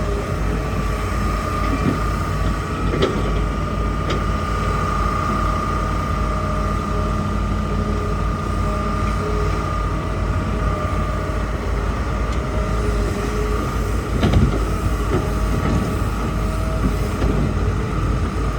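Hitachi hydraulic excavator working: diesel engine running steadily with a constant high whine over it, and a few sharp clanks, the loudest about two thirds of the way through.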